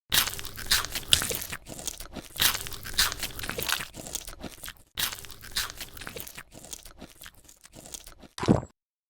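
ASMR eating sounds: rapid crunching and chewing of crisp food, many quick crackly bites, with a short louder crunch near the end before the sound cuts off abruptly.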